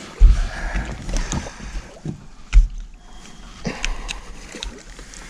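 Dull thumps about a quarter second in and again about two and a half seconds in, a few light sharp knocks, and a low rumble with some faint water sounds, like handling noise on the water's edge.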